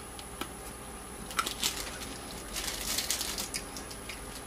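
Hard peanut brittle being bitten and chewed: a sharp crack about half a second in, a few crunches a second later, and a cluster of crunching near the middle.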